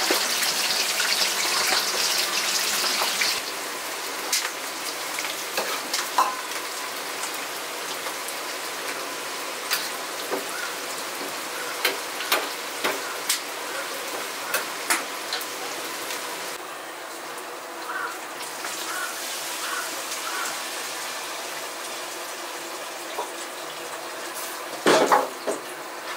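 Green onions frying in oil to make scallion oil: a steady sizzling hiss, strongest in the first few seconds, with scattered clinks of kitchen utensils and a brief louder clunk near the end.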